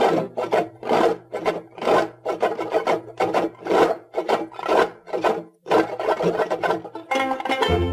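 Background music: a strummed acoustic string instrument playing a quick, scratchy rhythm. A bass and fuller accompaniment join near the end.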